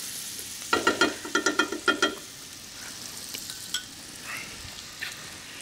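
Butter sizzling as it melts in a hot frying pan. About a second in, a rapid pulsing sound runs for about a second and a half.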